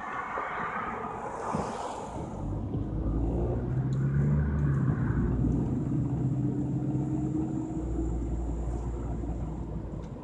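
Car pulling away from a stop and accelerating through a turn, heard from inside the cabin. The engine hum and road rumble grow louder over the first few seconds, and the engine note rises gradually as the car picks up speed.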